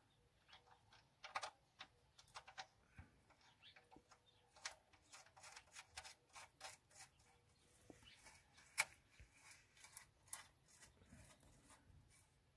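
Near silence with faint, scattered small clicks and light metallic scrapes as the oil drain plug is threaded back into the pan by hand, with one sharper click about nine seconds in.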